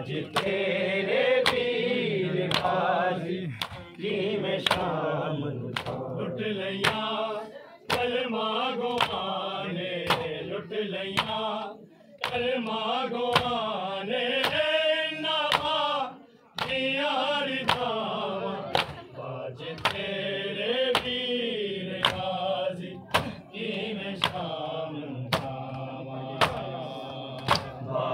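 Male voices chanting a noha, a Muharram lament, over rhythmic matam: sharp chest-beating strikes at a steady beat of about one and a half a second.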